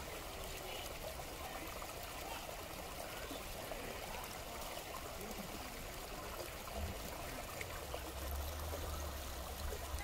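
Shallow creek water running and trickling over rocks in small cascades, a steady rushing babble. A low rumble joins in during the last few seconds.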